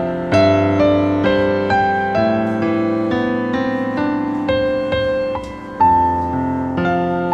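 Background music: a gentle piano melody, notes struck one after another about twice a second and left to fade.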